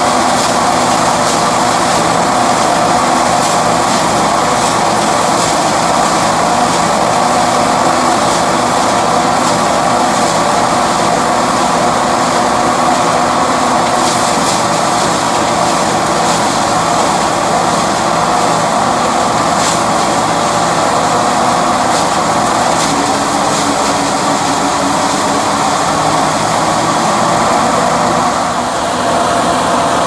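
John Deere 10A hammer mill running steadily, belt-driven by a tractor engine under load, as ears of corn are fed in and ground into feed.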